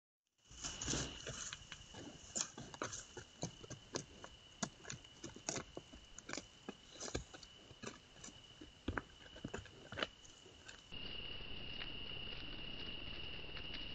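Irregular crackling and crunching of dry grass and twigs as a wild boar forages close to a trail camera, over a steady high tone. About 11 s in, the sound changes to a steady hiss with the same high tone and a few faint ticks.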